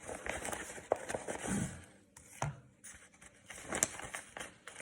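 Trading cards and their packaging being handled: irregular rustling and scraping with a few sharp clicks, the loudest about a second in and near the end.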